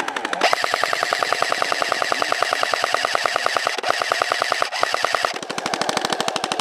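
A&K M249 SAW airsoft electric gun firing long full-auto bursts: a fast, even rattle of shots, broken by two short pauses a little after the middle.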